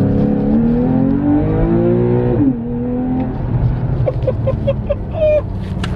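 Porsche 911's flat-six engine, heard from inside the cabin, revving up steadily in pitch under hard acceleration, then dropping sharply in pitch about two and a half seconds in and running on lower and steadier.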